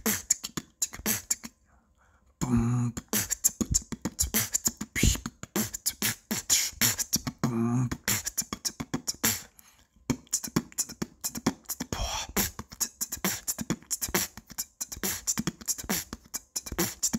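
Human beatboxing: a fast, rhythmic run of mouth-made kick, snare and hi-hat sounds, with a brief pause about a second in and two short hummed low notes mixed into the beat.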